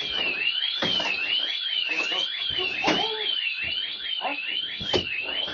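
An electronic alarm tone warbling up and down steadily, about once every three quarters of a second, with scattered knocks and short bits of voice beneath it.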